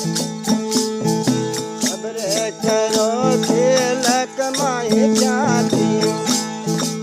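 Indian folk devotional music: steady rhythmic percussion strokes of a rattle or jingle kind over held steady notes. A wavering melodic line bends up and down from about two seconds in until about five and a half seconds.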